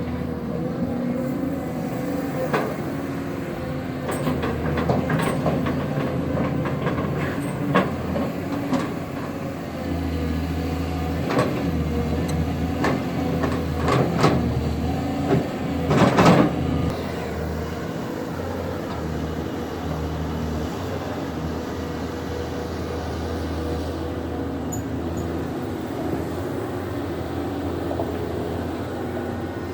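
Cat 320 hydraulic excavator's diesel engine running under varying load while digging, with repeated knocks and scrapes of the bucket against hard, stony ground.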